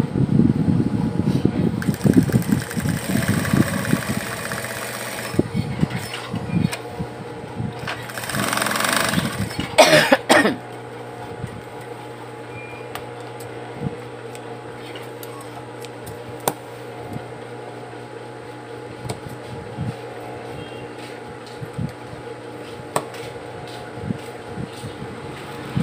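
Industrial sewing machine stitching in a rapid run at the start, then its motor humming steadily while fabric is handled. There is a louder burst of rustling about eight to ten seconds in, and occasional small clicks.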